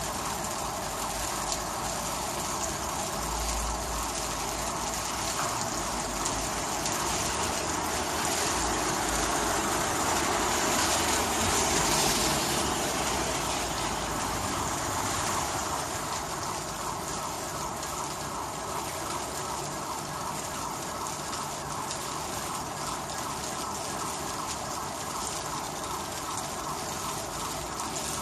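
Heavy rain falling in a steady hiss, growing a little heavier about a third of the way in before easing back.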